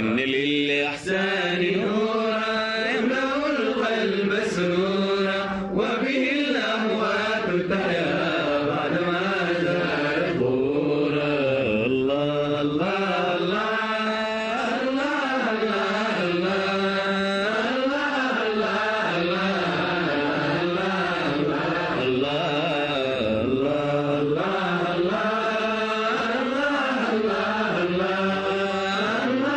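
Arabic Sufi devotional chanting (inshad): a wordless vocal line winding up and down in long melismas over a steady low drone.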